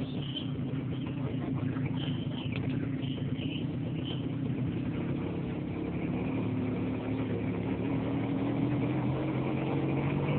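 Motorcycle engine of a motorized tricycle running while under way, heard from inside the sidecar; it picks up in pitch and grows louder in the second half as it speeds up.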